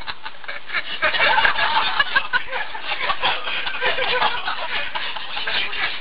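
Laughter and snickering from a young man and those around him, mixed with some chatter.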